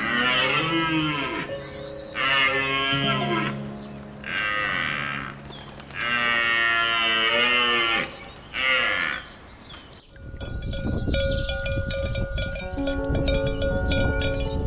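A cow mooing five times in long, drawn-out calls over background music. Near the end the calls stop and the music changes to plucked, bell-like notes.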